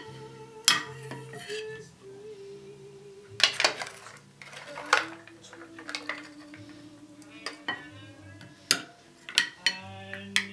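A metal ladle scooping steamed green-lipped mussels from a pot and setting them on a plate: sharp clinks and knocks of shells and ladle against pot and plate, about ten of them at irregular intervals.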